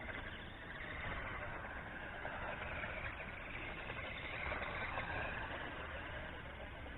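Electric motor of a 1:18-scale 4WD RC buggy whining as it is driven, its pitch rising and falling with the throttle, over a steady low rumble.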